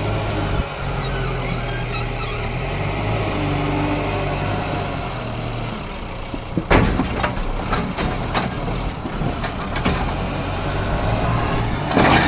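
JCB backhoe loader's diesel engine running under working load, its pitch rising and falling, with two loud crashes, one about seven seconds in and one near the end, each followed by clattering.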